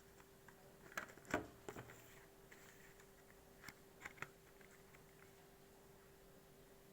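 Small clicks and light rustling from cough syrup packaging being handled, in two short clusters about a second in and again about four seconds in, over a faint steady hum.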